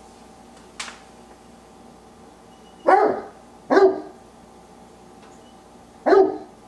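Old English Sheepdog barking to be let in: a single sharp click just under a second in, then two short barks close together and a third a couple of seconds later.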